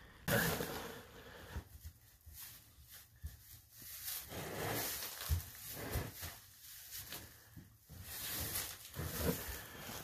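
Rustling and shuffling in straw bedding, with a few soft thumps, as hooves and feet move through the straw close by.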